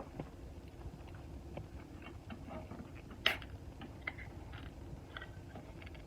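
Quiet small clicks and taps scattered over a faint background, with one sharper click about three seconds in.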